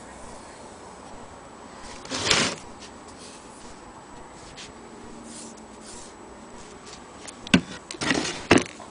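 Handling noise: a brief rubbing scrape about two seconds in, then near the end a sharp click followed by two short scrapes and a knock, over a low steady background hiss.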